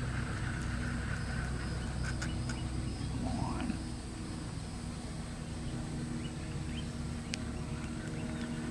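Outdoor ambience: a low steady rumble, with one brief rising call about three seconds in and a few faint ticks.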